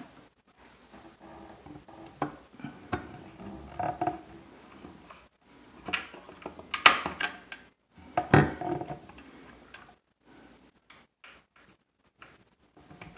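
Scattered knocks and clicks of a wooden cabinet door and its metal hinge being handled and fitted against the cabinet, with two louder knocks in the middle and only faint ticks near the end.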